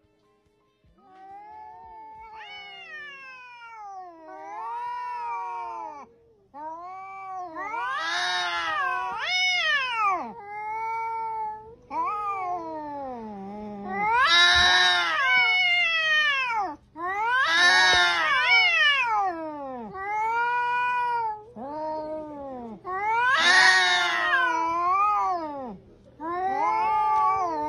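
Cats yowling at each other in a face-off: a string of long, wavering calls that rise and fall in pitch, louder from about eight seconds in.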